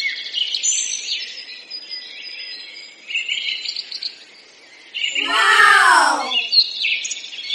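Birds chirping and twittering steadily. About five seconds in, a louder sound of several tones sliding downward lasts about a second.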